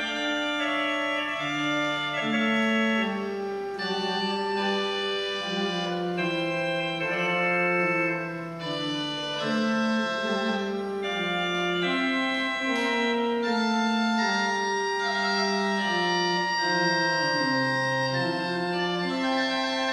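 Church organ playing a prelude before the service: several held notes sounding together, changing about once a second over a moving bass line.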